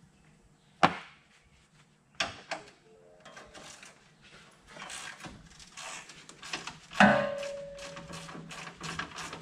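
Wrench working the steel radiator-mounting bolts: sharp metal knocks, then a run of quick clicks as a bolt is turned, with the loudest clank about seven seconds in ringing briefly.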